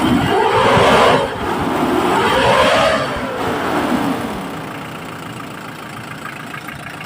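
Hyundai Bongo diesel engine revved twice, the pitch climbing and falling each time, then settling to a steady idle about four seconds in. It is running again after the missing ground to the injection pump's electronic module was restored.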